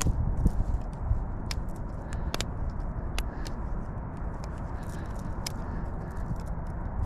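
Wind rumbling on the microphone, with a dozen or so small sharp clicks and ticks at irregular times.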